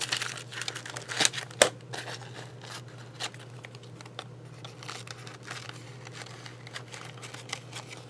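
Sliding paper trimmer cutting a coffee filter: a few sharp clicks in the first two seconds as the paper and blade carriage are set, then a faint, even scrape as the carriage slides along its rail. The blade is dull and drags through the filter.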